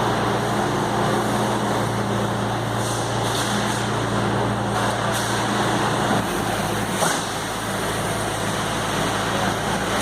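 Skid steer loader's engine running steadily under work, a low constant hum that drops a little in pitch about six seconds in.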